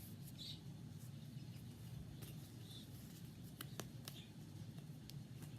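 Faint handling of trading cards: a few light clicks and taps as cards are sorted and laid out, over a low steady room hum.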